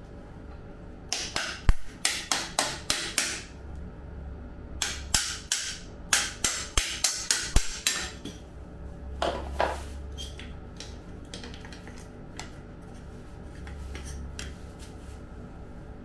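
Bicycle crankset being handled and taken apart by hand: runs of sharp metallic clicks, about three to four a second, in two bursts in the first half, then a few scattered fainter ones.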